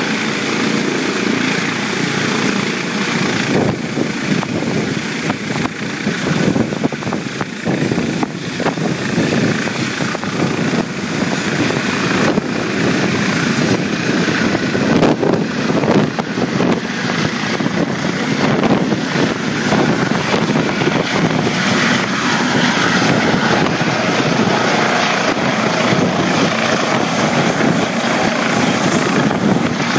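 Eurocopter EC155 helicopter lifting off and hovering low: steady, loud rotor noise with a thin high whine from its twin turboshaft engines and Fenestron tail fan.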